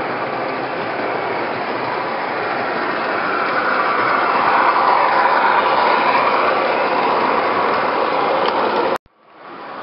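An MTH Premier O-gauge R40 slant subway model train running on three-rail track: a steady rolling whir from its wheels and motors that swells as the cars pass close, with a whine rising and falling at the loudest point. The sound cuts out abruptly about nine seconds in and fades back.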